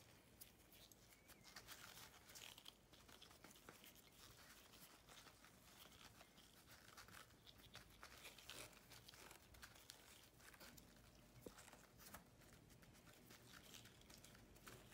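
Near silence with faint, scattered rustles and crackles from blue nitrile-gloved hands pressing and smoothing raw pie dough into a pan.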